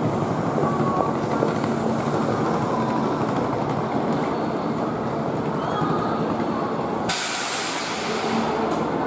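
Standing electric train humming steadily, then about seven seconds in a sudden loud blast of hissing compressed air that fades out over a second or so. This is the brake air exhaust of the emergency-brake application made as the cab is shut down to change ends at a terminus.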